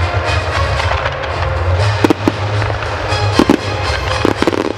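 Professional display fireworks going off, with sharp bangs in quick pairs from about two seconds in, over music with a steady deep bass.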